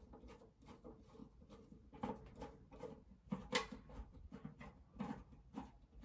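Faint, irregular clicks and scrapes of a hand screwdriver backing out the screw on an electric water heater's sheet-metal access cover.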